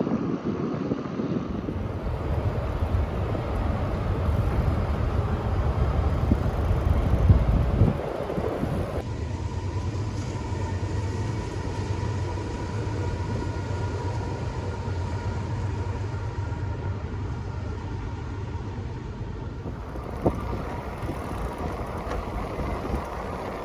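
Wind rushing over the microphone during an e-bike ride, with a steady low rumble. The sound shifts abruptly about 8 seconds and 20 seconds in.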